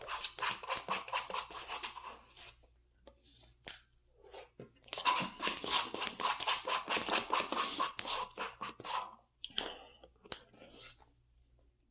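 A person chewing food close to the microphone: two bouts of rapid clicky mouth noise, the first about two seconds long and the second, louder, from about five to nine seconds in, with a few single clicks between and after.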